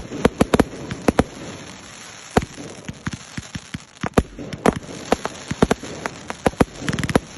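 Fireworks display: irregular sharp bangs and crackles of shells and effects bursting, some a second or more apart, with a rapid cluster near the end, over a steady hiss.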